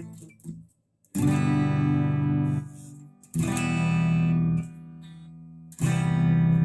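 First Act electric guitar played clean through an amplifier: three strummed chords, each struck sharply, left to ring for about a second and a half, then cut off.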